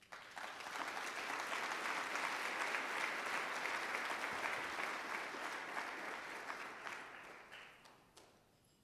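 Audience applauding: the clapping starts abruptly, holds steady for several seconds, then dies away over the last two seconds, with a few last scattered claps near the end.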